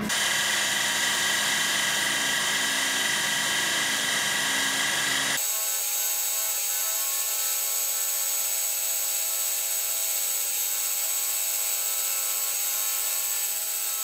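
Machine spindle running as a 4 mm coated drill, fed by hand, bores into a hardened steel file: a steady whine with high hiss. About five seconds in the lower rumble cuts out abruptly and the whine runs on.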